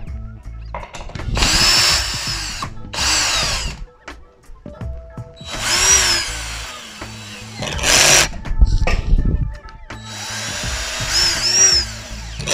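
Cordless drill-driver driving screws to fix a galvanized hinge to a pine board, in about five short runs; the motor whine rises and falls with each.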